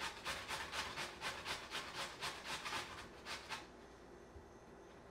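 Raw potato being grated on a flat metal grater: a quick back-and-forth rasping scrape at about five strokes a second, which stops about three and a half seconds in.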